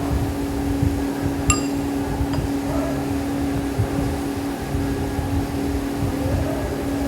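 Steady low machine hum with a low rumble, broken by a light ringing clink about one and a half seconds in and a fainter click a little later.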